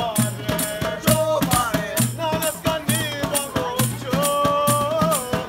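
A man singing a Turkish folk melody over a fast beat on a pair of hand drums, holding one long note near the end.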